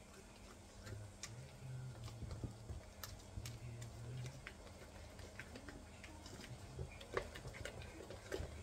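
Faint, irregular clicks and scrapes of a mixing utensil against a stainless steel bowl as a thick semolina batter is stirred. A faint low hum sounds for a few seconds in the first half.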